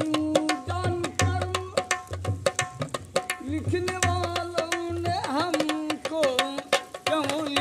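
Dholak, a rope-tensioned two-headed barrel drum, played by hand in a quick rhythm: many sharp slaps on the treble head over deep strokes on the bass head, with a wavering melody above it.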